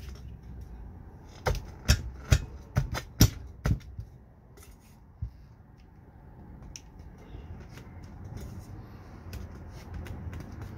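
Sharp knocks and taps of a Humvee X-door window frame and its Lexan pane as they are handled and pressed into the rubber gasket on a workbench. About eight knocks come in quick succession a second and a half in, then a few faint ticks.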